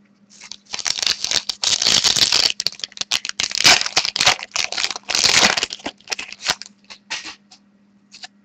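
A foil trading-card pack wrapper being torn open and crinkled by hand, a dense crackling with sharp clicks lasting about seven seconds.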